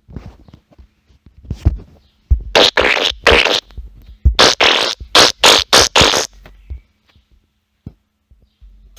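Fart sound effects played from a phone soundboard app: a string of short fart noises, faint at first, then several loud ones in quick succession before stopping about six seconds in.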